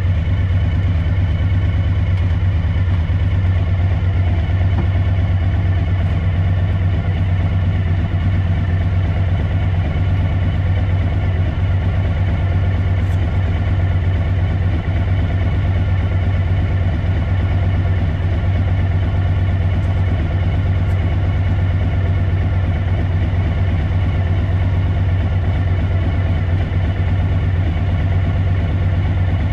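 An engine idling steadily, an even low hum that neither rises nor falls.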